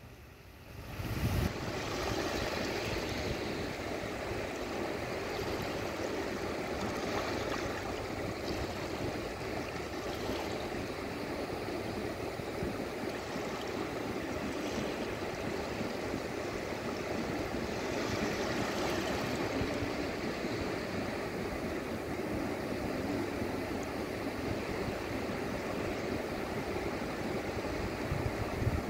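Gentle sea surf: small waves washing up over flat wet sand and drawing back, a steady rushing hiss. A short low thump comes about a second in, as the sound rises from near quiet.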